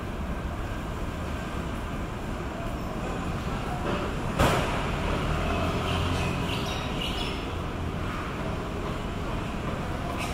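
Steady low rumble of outdoor street ambience, with one sharp knock about four and a half seconds in.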